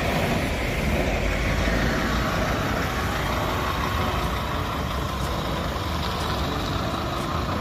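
Scania city bus driving past and away over cobblestones, its engine running with a steady low rumble under the road and tyre noise.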